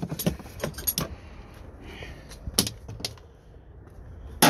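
Scattered clicks and light knocks as a removed automatic-transmission shifter cable is handled and carried, with a quieter stretch in the middle and a sudden loud noise just before the end.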